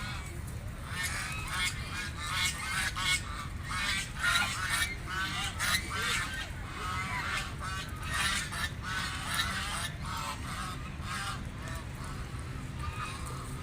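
A flock of domestic ducks quacking, many short calls overlapping in quick succession. The calls come thickest through most of the stretch and thin out near the end, over a steady low rumble.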